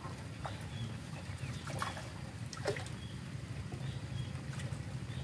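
A hooked fish splashing at the water's surface as it is reeled in toward the raft: a few short, separate splashes over a steady low hum.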